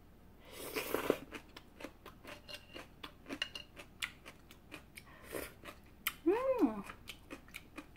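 Kohlrabi kimchi being bitten and chewed: a rapid, uneven run of sharp, crisp crunches, with a short hum that rises and falls in pitch near the end.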